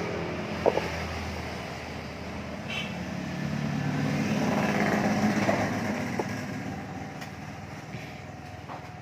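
A motor vehicle passing by: its engine grows louder to a peak about halfway through, then fades away. A sharp click comes under a second in.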